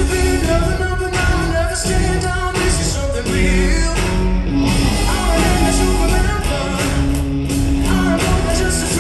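Loud upbeat show music with singing, drums and guitar, played over a theater's sound system.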